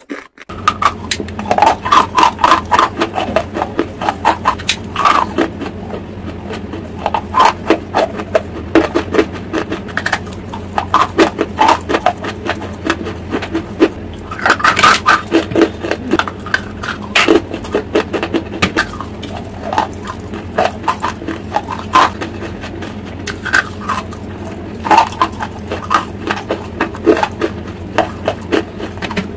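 Close-miked crunching and chewing of charcoal lumps coated in grey clay: many sharp crunches, several a second, over a steady low hum.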